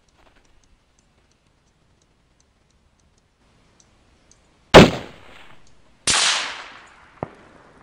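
A single rifle shot from a Savage 12 LRP chambered in .260 Remington, sudden and very loud, about five seconds in. About a second later comes a second sharp, noisy burst that dies away over about a second, then a short click near the end.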